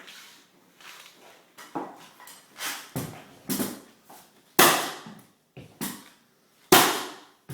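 Mallet blows on a hardwood flooring nailer and 3/4-inch Brazilian cherry floorboards: a run of irregular sharp knocks, the two loudest about four and a half and six and a half seconds in.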